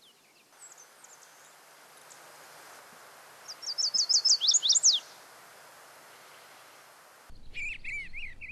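A warbler sings once, about three and a half seconds in: a rapid run of high, down-slurred notes lasting about a second and a half, ending on a few lower slurs, over a steady outdoor hiss. Near the end, after a cut, a different bird chirps at a lower pitch.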